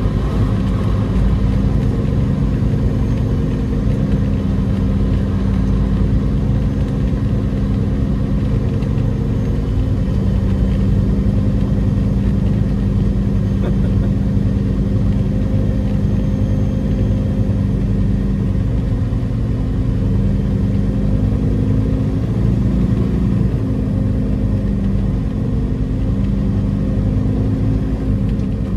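Peterbilt 389 semi truck's diesel engine running steadily under way, a low drone with small shifts in pitch.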